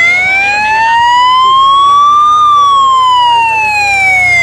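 Siren of a police escort motorcycle leading a bike race, loud and close: one slow wail that rises to a peak about halfway, then falls.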